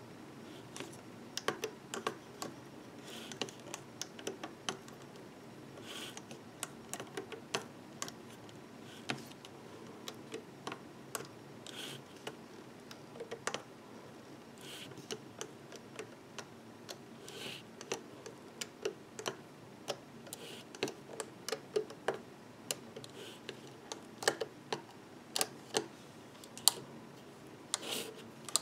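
Irregular light clicks and taps of a metal loom hook and fingers on the pegs of a plastic loom board as rubber loom bands are pulled over, with a few brief scrapes.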